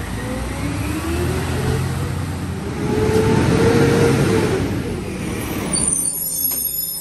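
Peterbilt 520 garbage truck's diesel engine revving up, its pitch rising over several seconds and holding high before easing off. Near the end the engine sound drops away sharply and a thin high whine is heard.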